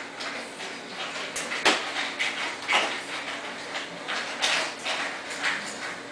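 Irregular rustling and scuffing strokes as a white-tailed deer fawn licks and nuzzles a kitten in wood-shavings bedding, with one sharp click a little under two seconds in.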